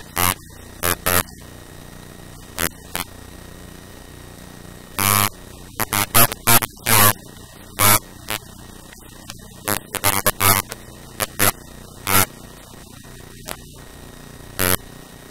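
Marker on paper: many short scratching, squeaking strokes in quick clusters, over a steady electrical hum.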